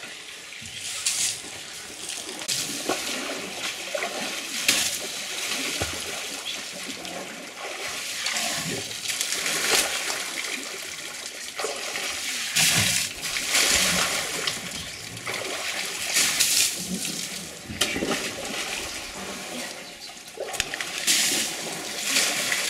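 Elephants drinking at a water hole: water splashing and pouring in irregular gushes every second or two as trunks draw up water and empty it out.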